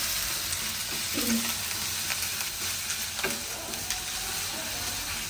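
Chopped spices (lemongrass, ginger, turmeric, galangal, garlic and dried chillies) sizzling in hot oil in a pan while being stirred, with a utensil knocking against the pan about a second in and again about three seconds in.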